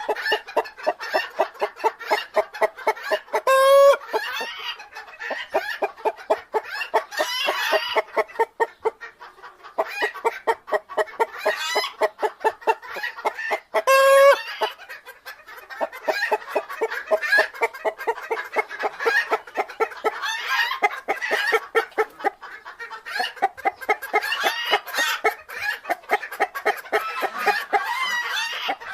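Chickens clucking in a rapid, busy stream of short calls, broken twice, about four and fourteen seconds in, by a louder drawn-out call.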